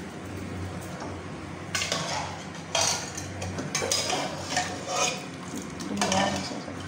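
Metal kitchenware being handled: a steel ladle knocking and scraping in an aluminium cooking pot, with several separate clatters a second or so apart, over a low steady hum.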